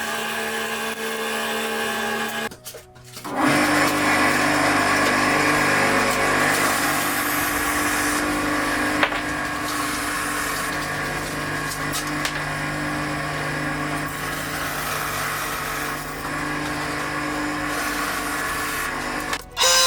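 Parkside 350 A1 bandsaw running and cutting wood, a steady machine hum under the rasp of the blade. It breaks off briefly about three seconds in, then comes back louder.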